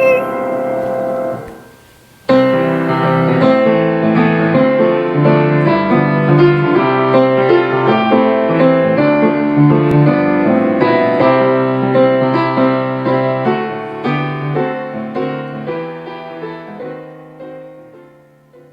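Solo piano playing slow chords over bass notes. It starts about two seconds in, after a held note with vibrato has died away, and fades out gradually near the end.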